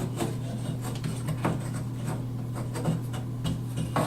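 Pencil scraping on the wooden back panel of a vanity cabinet, a few light scratches and taps as it traces around a water supply stub-out.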